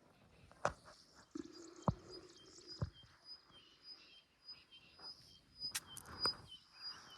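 A small bird calling a quick series of short, high chirps, about three a second and alternating between two pitches, with a few sharp clicks or knocks close by.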